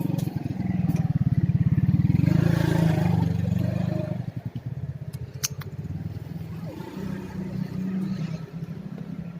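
A small engine running with a fast, even pulse. It revs up about two seconds in, eases off around four seconds, and picks up briefly again near the end. A couple of sharp clicks sound over it.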